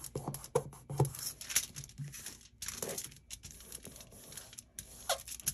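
Aluminium foil crinkling and rustling under fingertips rubbing and pressing it down over raised shapes beneath it, in a run of irregular scratchy strokes.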